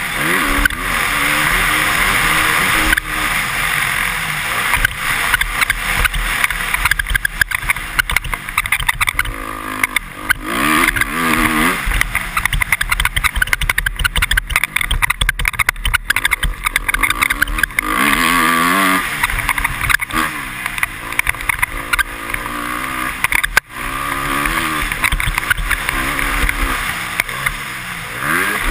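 Honda CRF250R motocross bike's single-cylinder four-stroke engine repeatedly revving up and falling back as the throttle is worked around the track, under heavy rushing wind noise.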